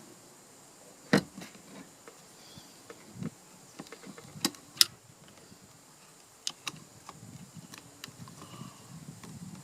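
Scattered small clicks and taps of hands working plastic parts, with a faint rustle, as a new pull cord is fed through a string trimmer's recoil starter. The sharpest clicks come about a second in and twice just before five seconds.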